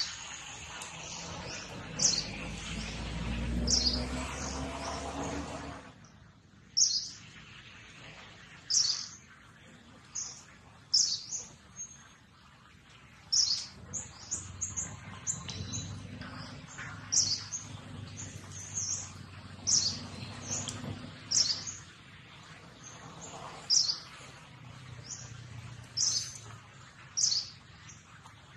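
A small bird chirping over and over: short, high, falling notes every second or two. For the first six seconds a low rumble with a rising hum runs underneath, then cuts off.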